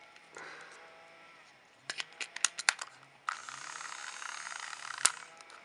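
Plastic clicks from a battery-powered toy train engine being handled, then its small electric motor whirring steadily for about two seconds before a click as it is switched off.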